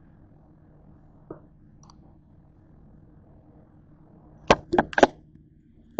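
Faint steady background hum. Then, about four and a half seconds in, a quick cluster of four sharp knocks and clatters as a box of cling wrap is handled over a bowl on a glass counter.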